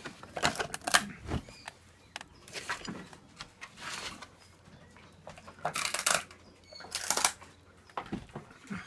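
Dog chewing a dried pig ear, with irregular crunches and short pauses between them.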